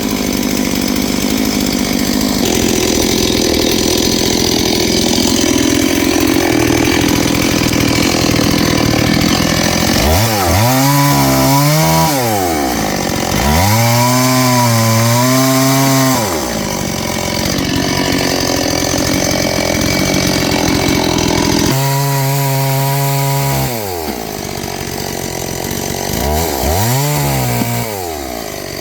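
Noker 381 two-stroke chainsaw running after a cold start, idling and then revved up four times. Each time the pitch rises, holds briefly and falls back.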